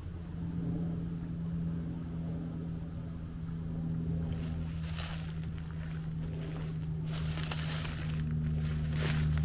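An engine drones steadily at a constant pitch. From about halfway in, irregular rushes of wind rustle come over it.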